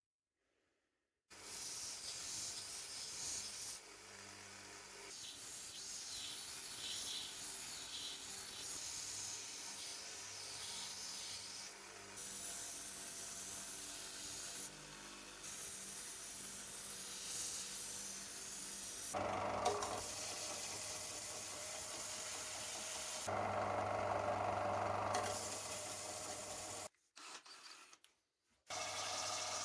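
Rusty metal vise parts being scrubbed and abraded, a rubbing, rasping sound, in a series of short clips that start and stop abruptly. A steady low hum runs under some of them.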